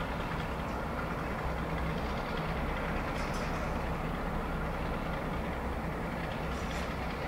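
Diesel locomotive engine running with a steady low drone as the locomotive creeps forward at low speed, with a couple of faint high clicks.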